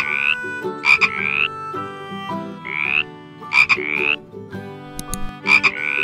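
Frog croaking in short rising calls, mostly in pairs about a second apart, over quiet background music.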